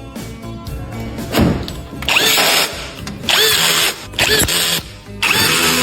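A handheld power tool of the drill or impact-driver kind run in short bursts of about half a second, roughly once a second. Each burst has a whine that spins up and winds back down, as when driving or removing bolts during the repair.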